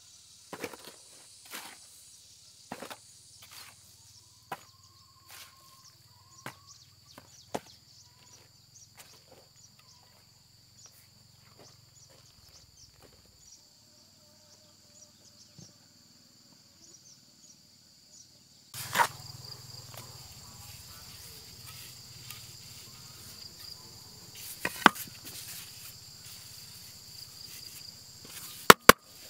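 Irregular sharp chopping knocks on wood, about one a second at first, then sparser and louder later, over a steady high-pitched drone of insects.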